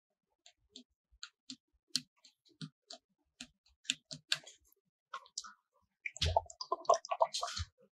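Scattered small, sharp clicks and taps, a few per second, getting busier with some duller knocks and rustling from about six seconds in.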